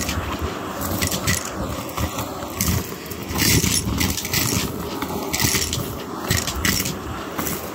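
Vacuum cleaner running with its nozzle on carpet, sucking up a pile of small debris that crackles and rattles irregularly as it goes up the hose.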